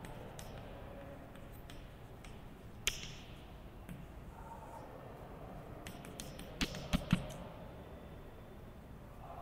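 Chalk tapping and scratching on a blackboard during writing: a single sharp click about three seconds in and a quick run of three clicks around seven seconds, over a faint steady room hiss.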